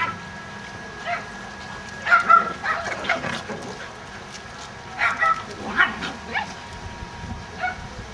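Dogs at play, a Nova Scotia Duck Tolling Retriever puppy among them, giving short high yips and barks in two clusters: one about two seconds in, another about five seconds in.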